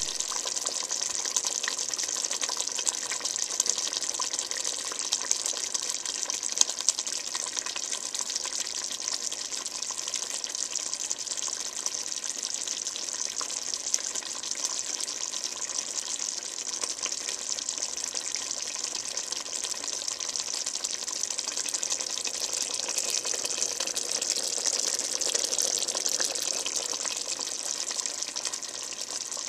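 Thick tomato sauce boiling hard in a saucepan: a steady bubbling hiss dotted with many small pops, a few of them louder in the first several seconds.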